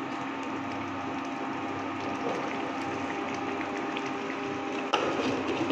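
Steady hum of a Prestige induction cooktop running at full power, with tomato masala simmering in the frying pan. A glass lid clinks onto the pan about five seconds in.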